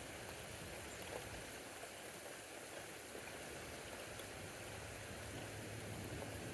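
Steady rain falling during a thunderstorm, an even hiss with faint scattered drip ticks.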